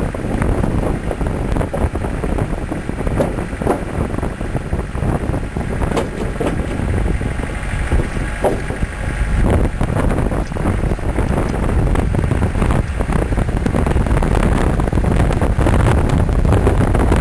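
Land Rover 4x4 driving over a wooden plank bridge: a steady low rumble from the engine and tyres, with scattered knocks and rattles as it rolls over the boards. Wind buffets the microphone throughout.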